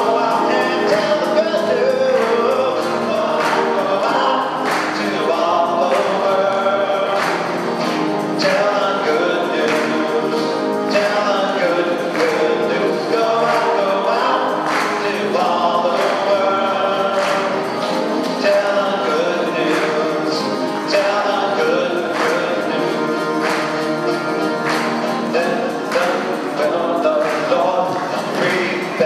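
Church choir singing a hymn accompanied by acoustic guitar, with a steady beat.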